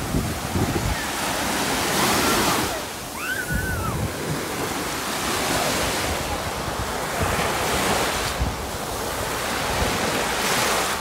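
Small waves breaking and washing up over sand at the shoreline, the surf swelling and easing every couple of seconds. Wind rumbles on the microphone near the start, and a faint, brief high-pitched call sounds about three seconds in.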